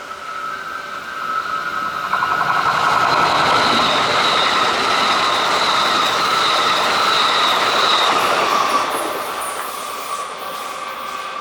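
Kintetsu electric train passing through the station close by, its rumble swelling about two seconds in, staying loud for several seconds and fading after about nine seconds. A steady high tone runs through it, with a second, higher tone while the train is loudest.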